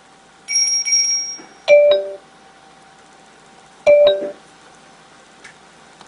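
Electronic sound effects from a Finedrive iQ 3D HD300 car navigation unit: a short high beep, then a two-note falling ding-dong chime played twice, about two seconds apart.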